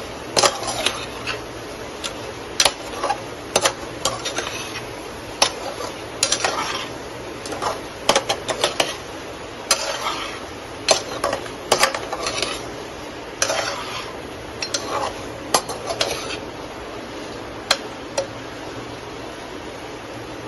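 A slotted metal spoon stirring potatoes in thick curry inside a metal pressure-cooker pot, with irregular clinks and scrapes of the spoon against the pot over a faint steady hiss. The scraping thins out after about sixteen seconds.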